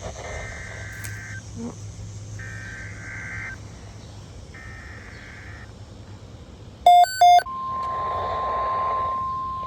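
Emergency Alert System header: three warbling digital data bursts, each about a second long, that encode the alert. About seven seconds in come two short, loud beeps, then the steady single-pitch NOAA Weather Radio warning alarm tone begins. Hum and hiss from the radio reception lie underneath.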